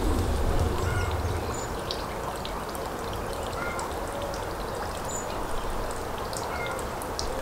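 Water running and trickling in a shallow canal, a steady rush, with faint short bird chirps scattered through it.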